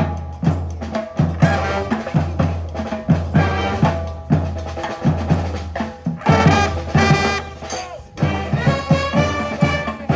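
Street brass band playing an up-tempo instrumental passage: horns over snare and bass drum on a steady beat, with a sousaphone carrying the bass line.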